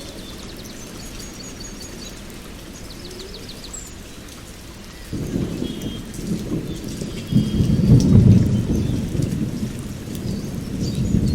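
Steady rain with birds chirping and trilling, then thunder rumbling in about halfway through, swelling to its loudest a few seconds later and rolling on.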